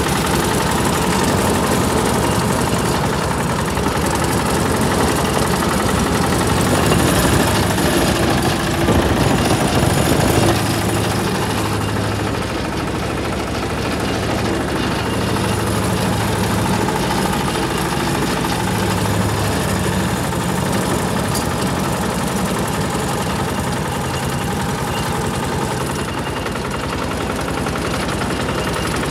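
Piquersa mini dumper's engine running steadily, heard from the driver's seat, a little quieter from about ten seconds in.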